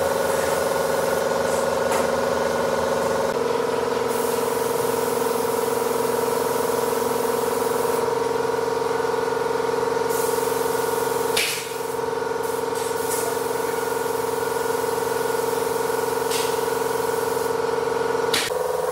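A motor-driven workshop tool running steadily with a high whine over a hiss. There is a brief click and drop midway and another near the end.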